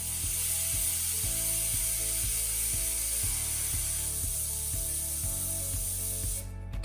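A steady high-pitched hiss that cuts off abruptly near the end, over background music.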